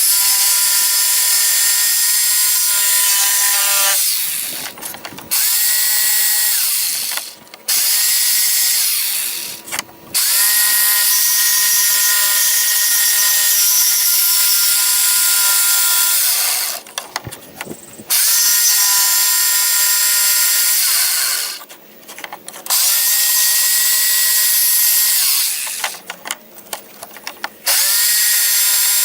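Scroll saw cutting wood in runs of a few seconds. It is stopped and restarted about six times, its motor whine rising in pitch each time it starts and falling as it stops.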